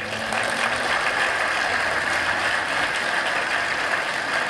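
Large audience applauding: steady, dense clapping throughout.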